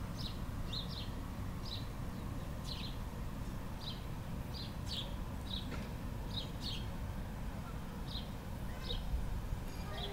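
A bird repeating short, high chirps, one or two a second, over a steady low rumble.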